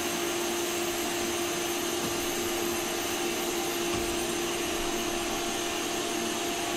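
Vacuum cleaner running steadily with a constant hum and whine.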